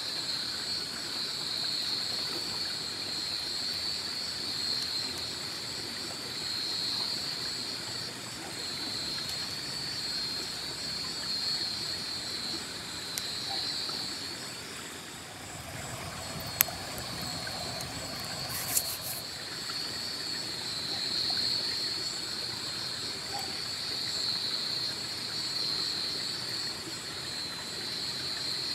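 A steady, high chorus of night insects trilling over the even rush of a river, with a couple of sharp crackles from a wood campfire about two-thirds of the way through.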